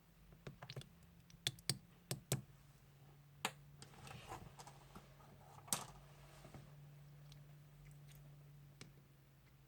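Clear slime being handled by hand: a quick run of sharp clicks and pops in the first couple of seconds, a few more pops later, and softer squishing in between. A steady low hum sits underneath.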